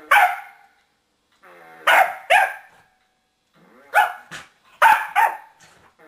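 A corgi barking in sharp, loud barks: one at the start, then quick pairs about two, four and five seconds in. It is barking at a remote-control whoopie cushion hidden under the sofa cushion.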